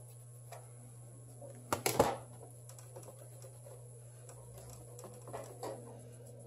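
Small hard clicks and taps from a phone and its replacement display being handled on a repair bench, with a quick cluster of sharp clicks about two seconds in and a few lighter ones later. A steady low hum runs underneath.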